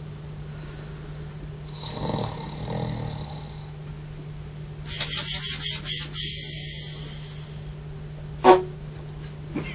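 A person snoring: one long rough snore about two seconds in, then a rattling snore in quick pulses about five seconds in. A sharp click near the end, over a steady low hum.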